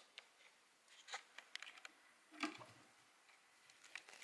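Near silence with a few faint scattered clicks and soft rustles from guinea pigs nibbling dandelion and shifting about on wood-shaving bedding.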